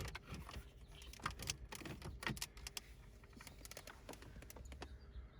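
Faint, irregular small clicks and taps of plastic wiring plugs and cables being handled behind a car stereo head unit.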